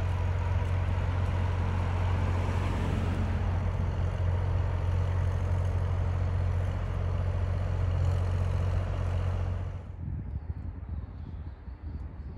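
A motor vehicle's engine drones steadily with road noise. The sound drops away sharply about ten seconds in, leaving fainter background noise.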